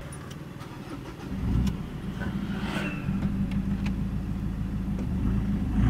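Turbocharged common-rail diesel engine of a Ford pickup starting about a second in, then running at a steady idle.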